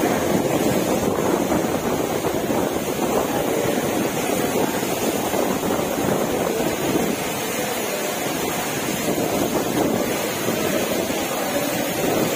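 Torrential rain pouring down in strong wind: a loud, steady, even rush of noise.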